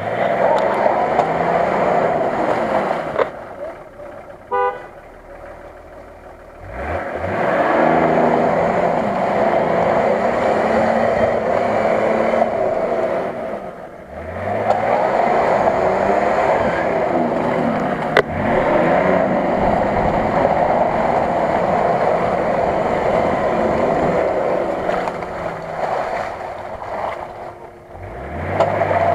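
Nissan Patrol's engine revving hard in long bursts as the 4x4 churns through deep mud. It eases off and climbs again three times, about five, fourteen and twenty-seven seconds in.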